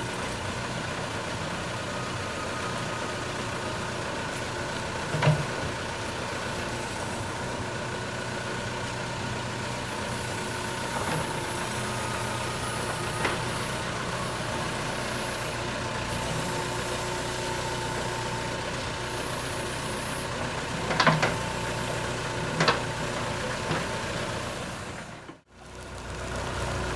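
JCB 3CX backhoe loader's diesel engine running steadily, with a few sharp knocks about five seconds in and again twice around twenty-one to twenty-three seconds in. The sound drops out briefly near the end.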